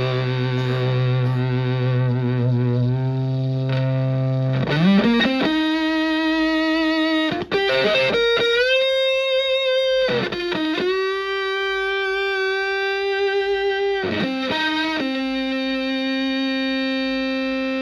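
Electric guitar (a Stratocaster in drop C) through a Tone Bender MKI-style fuzz pedal, playing heavy fuzzed notes. A low held note slides up about five seconds in, then long sustained notes ring out with slight vibrato, broken by a few quick note changes.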